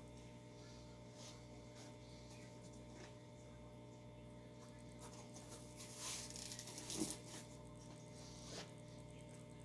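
Faint steady electrical hum with its overtones, and a few light clicks and rustles from about five seconds in.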